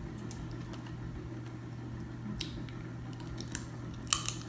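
Kitchen scissors snipping through a fried lobster's shell: a few scattered faint clicks and crackles over a low steady hum, with a sharper short crackle near the end.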